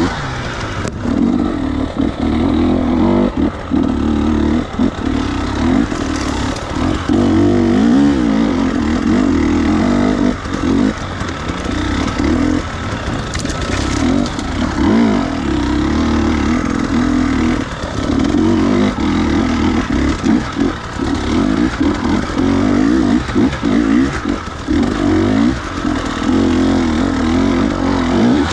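300cc two-stroke enduro dirt bike engine revving up and down, the pitch wavering with the throttle, which closes briefly every few seconds.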